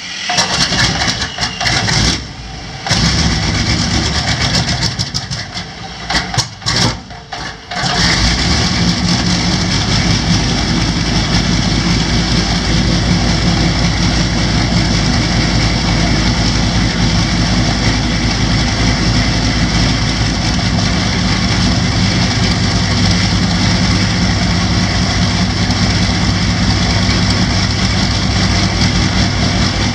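Old propeller aircraft piston engine cold starting: it sputters unevenly for several seconds, catches about eight seconds in, then runs steadily.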